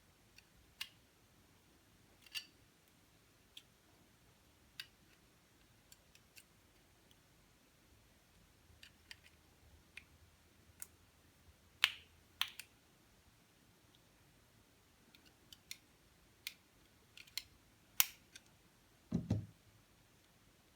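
Irregular small clicks and taps, some sharper than others, spaced a second or more apart, from hand tools and small parts being handled during repair work. A duller, heavier knock comes near the end.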